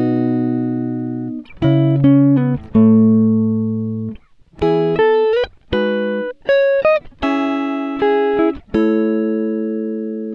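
Background music: a plucked guitar tune, its notes and chords struck about once a second and each left to ring and fade.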